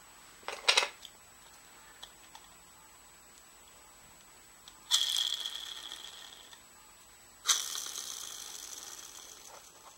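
3D-printed PLA spinner air motor's rotor set spinning twice, each time starting suddenly with a high steady whir that fades away as it coasts down, the second spin lasting longer. A brief plastic clatter of the parts being handled about half a second in.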